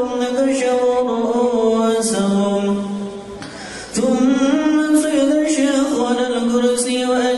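A man reciting Arabic manaqib text in a slow, melodic chant with no accompaniment, holding long notes. He breaks off for breath about three seconds in and starts again about a second later.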